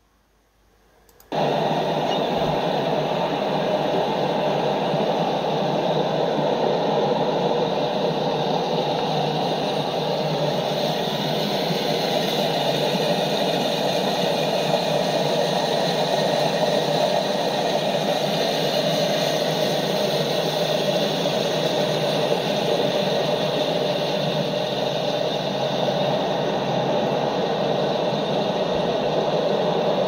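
Steady rushing noise from outdoor riverside footage played back through a computer's speaker. It starts abruptly about a second in.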